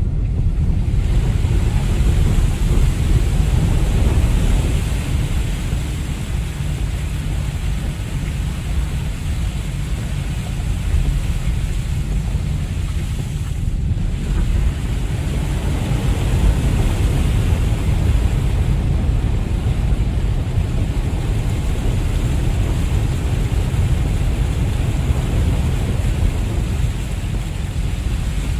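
Inside a small car's cabin while driving through heavy rain: a steady low rumble of tyres on the wet road, with the hiss of rain and spray on the roof and windscreen.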